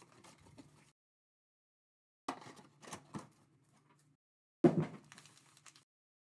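Cardboard trading-card boxes and foil packs being handled on a table: short bursts of rustling and knocking, broken by dead silent gaps. A sharp knock about three quarters of the way through is the loudest sound.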